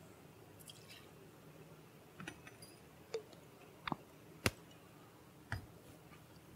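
Faint, sparse clicks and knocks of a glass whiskey bottle and bar tools being handled. There are a few light clicks and two short squeaks as the stopper goes back into the bottle's neck, a sharp click about four and a half seconds in, and a dull knock just after five and a half seconds as the bottle is set down on the bar.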